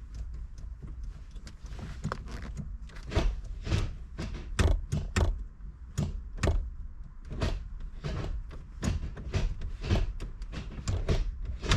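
Irregular clicks and knocks of hard plastic interior trim and the shifter being handled and pressed into place around a Focus RS center console. The knocks come singly and in quick clusters, busier in the second half.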